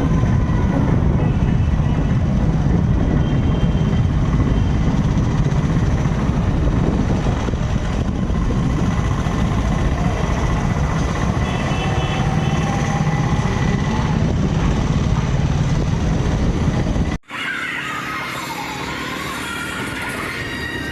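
Steady vehicle and road noise with a heavy low rumble, cutting off abruptly about three-quarters of the way through to a quieter street sound.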